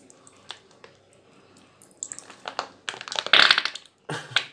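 Mayonnaise squeezed out of a soft plastic pouch: quiet at first, then a run of short squeezing and crinkling noises from about two seconds in, loudest a little after three seconds.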